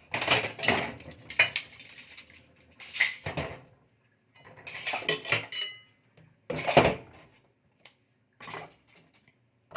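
Plates and cutlery clattering and clinking as dishes are washed by hand. It comes in short bursts of clatter with near-silent pauses between, and one item rings briefly about halfway through.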